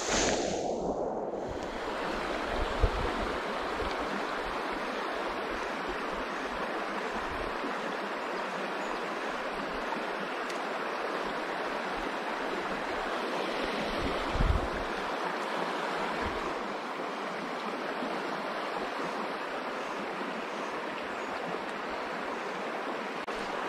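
Steady rush of a small creek running over a shallow rocky riffle, swollen by rain, with a couple of brief low bumps.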